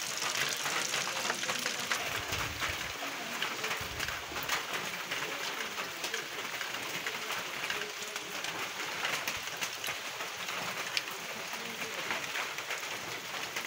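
Steady rain falling on a wet paved road and puddles, a dense even patter of drops.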